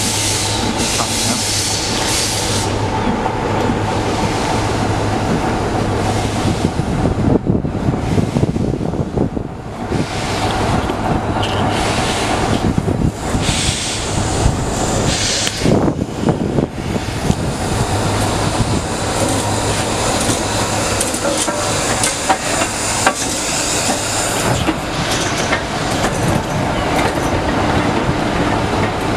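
Somerset & Dorset Joint Railway 7F 2-8-0 steam locomotive 53808 pulling away and passing close by with its train. Loud steam hiss from the open cylinder drain cocks comes and goes over a continuous rumble, with knocks and the clatter of wheels on rail joints as the locomotive and coaches go past.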